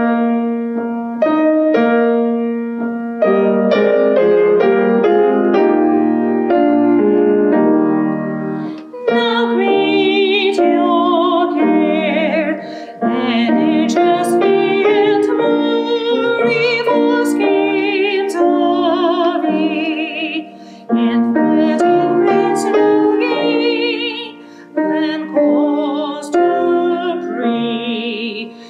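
A grand piano plays a hymn introduction, then about nine seconds in a woman's solo voice enters, singing the hymn in a classical style with strong vibrato over the piano accompaniment.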